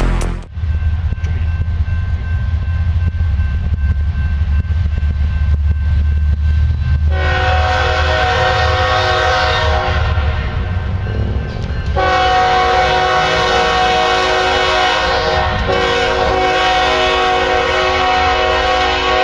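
Diesel freight locomotives (GE AC4400s) approaching with a deep, steady rumble. About seven seconds in, the lead unit's multi-note air horn starts to blow, eases off briefly, then sounds again long and loud through the rest.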